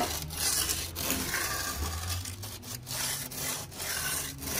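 Hand concrete edger scraping along the edge of a freshly cast concrete countertop, a gritty rubbing in repeated strokes with short breaks, as the edge is shaped in concrete that has set for about two hours and no longer slumps.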